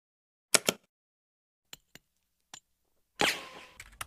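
A few sharp, isolated clicks in silence, then about three seconds in a short noisy swoosh with a falling tone that fades away, followed near the end by a quick run of clicks.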